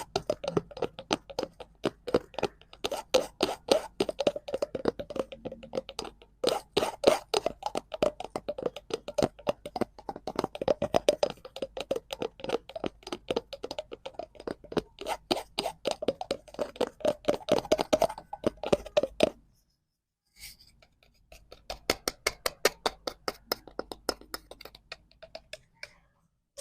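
Rapid tapping on a cardboard prop, many quick taps a second, stopping for about two seconds some three-quarters of the way through and then starting again.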